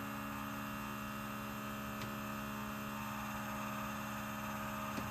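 Electric fuel pump running with a steady hum. It is not building fuel pressure, with little fuel in the system.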